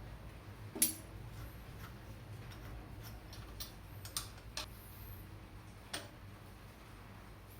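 Scattered light clicks and taps of small hard objects being handled, the sharpest about a second in and a few more irregularly later, over a steady low hum.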